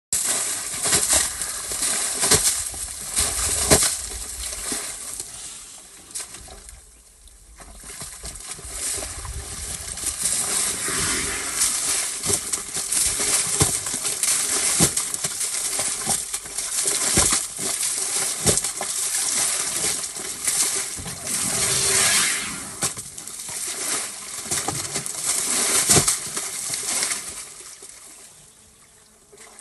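African elephant working in a muddy waterhole: irregular wet slaps, splashes and squelches of mud and water, dropping away briefly twice.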